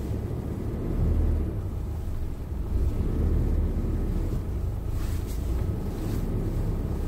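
Large truck's engine running, heard from inside the cab as the truck drives slowly: a low, steady sound, not very loud.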